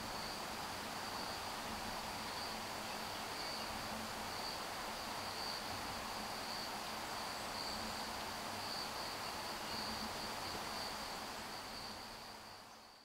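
A steady high-pitched insect chorus, one continuous trill that swells and eases slightly every second or so, over a faint even hiss. It fades out at the very end.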